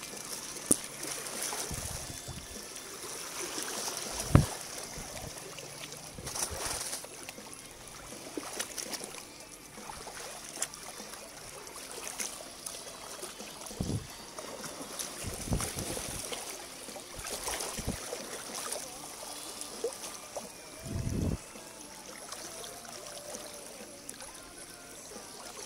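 Shallow stream water trickling and sloshing over rocks as a stick probes through it, with several dull thumps, the loudest about four seconds in, and a steady high-pitched hiss underneath.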